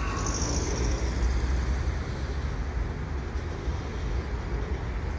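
Freight train of tank cars rolling across a steel railway overpass overhead: a steady low rumble. A car drives past close by in the first second, adding a short swell of tyre hiss.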